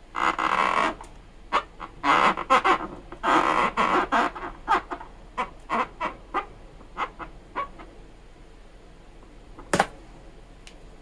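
Felt-tip marker pen rubbing across an inflated latex balloon as a face is drawn on it. It comes in a few longer strokes at first, then a run of short ones. A single sharp click comes near the end.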